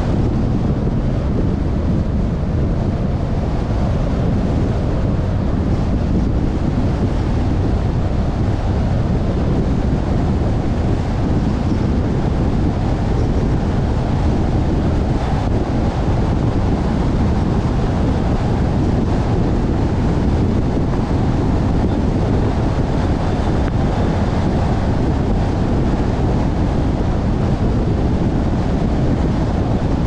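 Steady road noise of a car driving at highway speed: a low, even rush of tyres and wind on the microphone.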